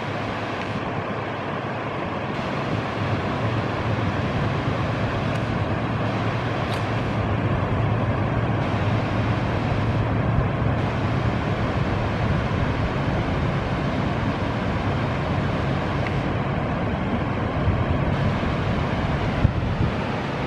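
Several GE BB36-7 diesel-electric locomotives working as they haul a loaded limestone and clinker train, heard from across a canyon as a steady low engine rumble and hum that grows slightly louder a few seconds in.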